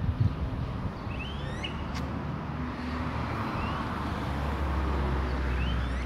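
Smooth-billed anis giving short rising whistled calls about three times, over the low rumble of street traffic that swells as a vehicle passes near the end.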